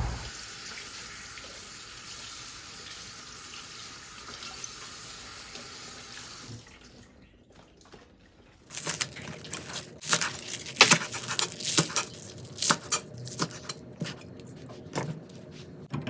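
Kitchen tap water running for about six and a half seconds, then stopping. After a short pause, a run of irregular sharp clicks and knocks.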